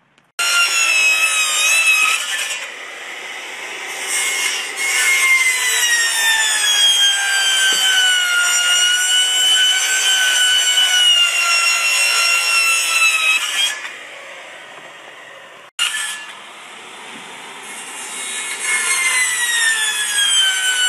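Handheld circular saw running and cutting through a stack of vinyl siding panels, its motor whine sagging in pitch under load and recovering. It drops quieter about two-thirds through, cuts out for an instant, then builds back up near the end.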